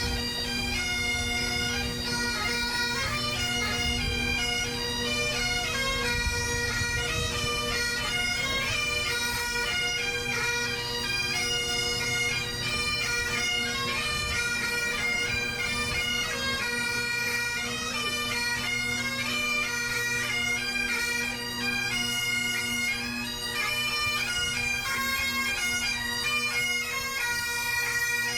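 A bagpipe playing a melody on the chanter over steady, unbroken drones.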